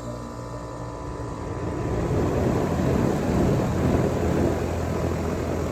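5-ton Lennox Elite two-stage central air-conditioner condenser starting up: a steady hum that swells over the first two to three seconds into a loud, even whoosh as the compressor and condenser fan come up to speed.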